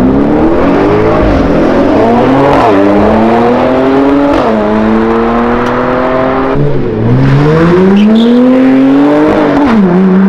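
A car engine accelerating hard through the gears: the pitch climbs steadily, drops sharply at each upshift, then climbs again, with four or so shifts in a row.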